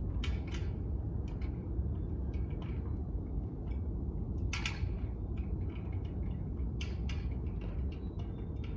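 Steady low outdoor rumble, with scattered faint short ticks over it.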